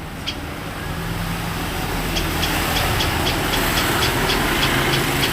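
A rapid, evenly spaced run of short, high bird chirps, about three to four a second, begins about two seconds in. Under it runs a steady low rumble like passing traffic, which grows louder at the same point.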